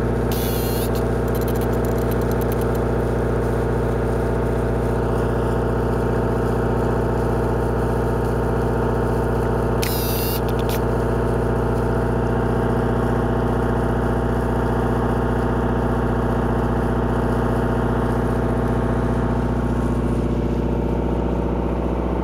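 A boat's engine running steadily at constant speed, a deep even drone. Two short hisses cut in briefly, about half a second in and again about ten seconds in.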